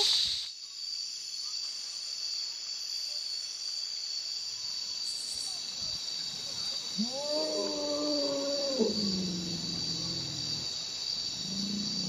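Rainforest ambience: a steady high drone of insects, and about seven seconds in a loud howling animal call that rises in pitch, holds and then falls away, followed by lower calls near the end.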